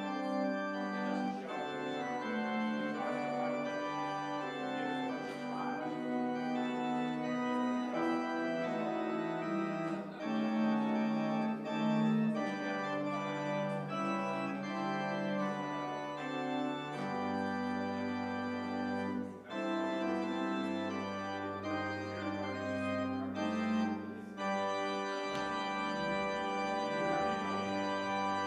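Organ playing slow, sustained chords over a bass line that steps to new held notes every few seconds, as an end-of-service postlude.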